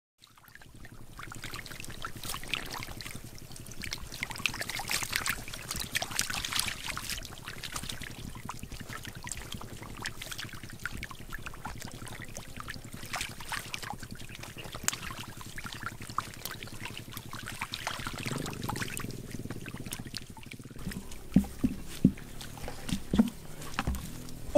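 Shallow muddy water in a rice-field pool splashing and trickling in many small, irregular spurts. Near the end come a few heavier low thuds.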